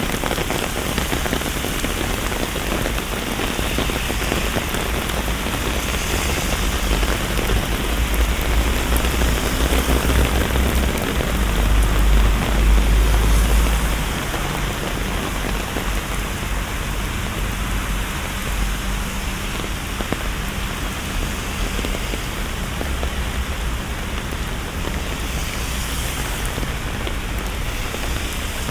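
Steady, even rushing noise like falling rain, with a deep low rumble underneath that grows louder around the middle and then settles.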